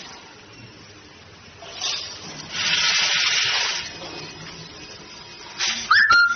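Automatic vertical bag-packing machine working, with short bursts of hissing, the longest lasting just over a second. A brief, loud squeal with a rising pitch comes near the end.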